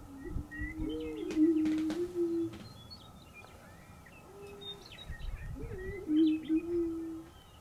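Male greater prairie chicken booming: two low, hollow, moaning hoots of about two seconds each, with a lift in pitch near the start of each, and a short single hoot between them. Faint high bird chirps run behind.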